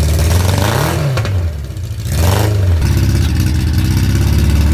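1979 Kawasaki KZ1000 inline-four engine freshly started and running, blipped up in revs twice in the first few seconds and then holding a steady idle. It is running, but not running real well.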